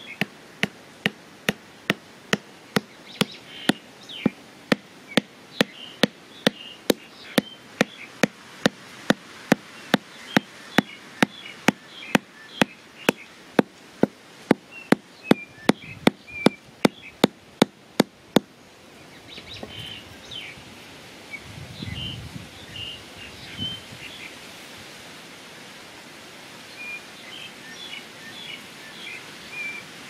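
Small birds chirping, with a steady run of sharp knocks, about two a second, that stops abruptly about two-thirds of the way through; a few dull thumps follow.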